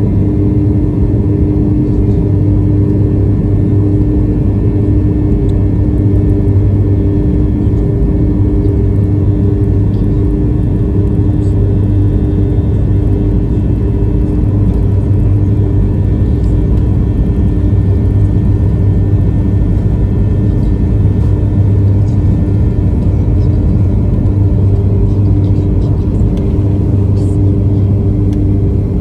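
Airliner jet engines running at takeoff power: a loud, steady low rumble with a constant hum, unchanging throughout.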